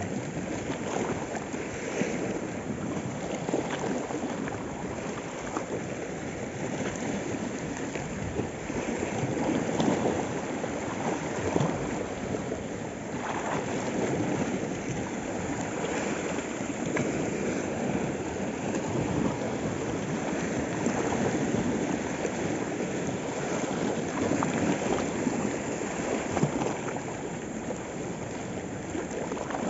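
Small sea waves washing and splashing against shoreline rocks, a steady wash that swells and eases every few seconds.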